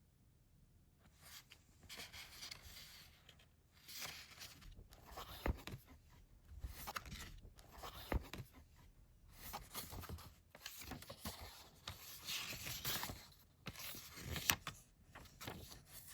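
Rustling and scraping of objects being handled, coming in bursts of a second or two, with a few sharp clicks.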